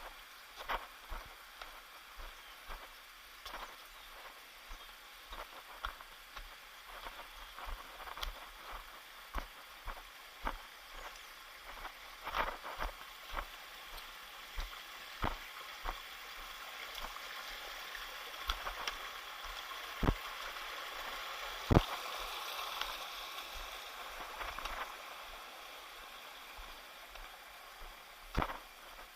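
Flowing stream water, a steady rush that swells in the middle, with irregular short knocks throughout, two of them louder about two-thirds of the way in.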